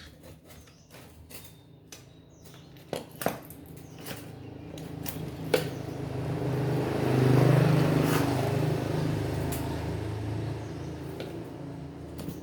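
Electric fan motor humming while a rush of noise builds up over a few seconds and then slowly eases off, as the repaired fan is run up and allowed to wind down. A few sharp clicks come before it starts.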